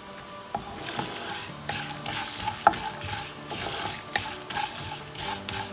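Whole spices, coriander and fennel seeds among them, sizzling in hot oil in a nonstick pan while a wooden spatula stirs and scrapes them, being toasted until golden brown. The stirring starts about half a second in, with one sharp knock partway through.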